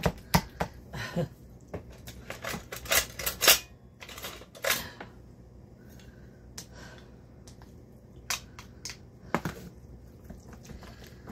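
A masher striking and scraping in a disposable aluminium foil pan as cherry tomatoes and cream cheese are smashed: irregular clicks and taps in clusters, with a quieter stretch in the middle.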